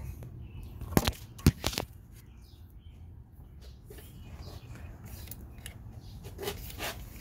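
A few sharp knocks, loudest about a second and a half in, as a Cadillac DeVille alternator is forced out of its mounting in the engine bay, followed by quieter handling.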